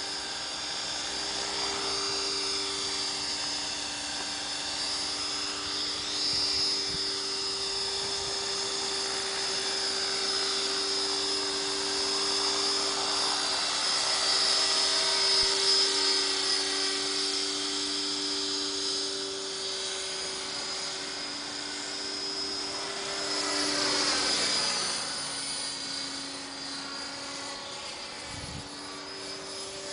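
Align T-Rex 500 radio-controlled helicopter flying, its motor and rotors giving a steady high whine over a lower hum. It is loudest mid-way, and its pitch drops about 24 seconds in.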